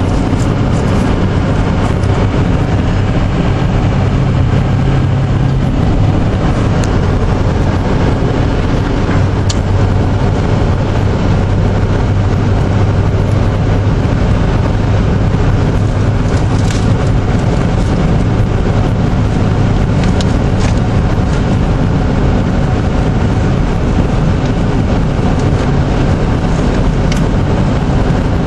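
Steady road and tyre noise with a low engine hum, heard from inside a car's cabin while driving on a snowy road. A few faint ticks are scattered through it.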